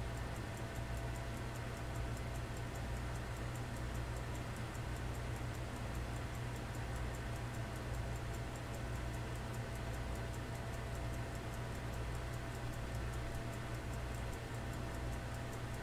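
Fast, even mechanical ticking over a low steady hum.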